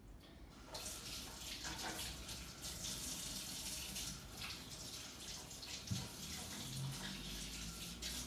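Water running from a tap into a sink, starting about a second in, as sticky slime is washed off hands.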